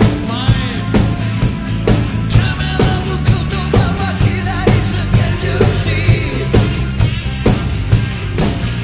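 Acoustic drum kit played to a loud rock song with a man singing over steady bass and a regular beat.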